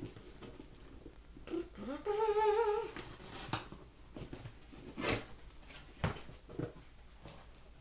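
A woman hums a short, wavering note about two seconds in. Around it come a few short crisp rustles of paper packaging being handled during an unboxing.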